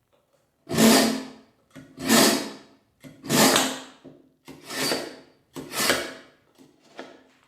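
A blunt kitchen knife drawn hard through the crossed steel blades of a manual pull-through sharpener, six rasping strokes about a second apart, the last one fainter. The steel blades are scraping metal off the edge in the coarse first stage of sharpening.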